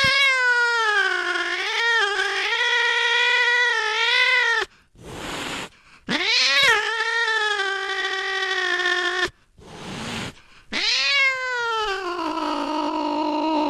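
Domestic cat yowling: three long, drawn-out calls, each wavering in pitch, with short noisy bursts in the gaps between them.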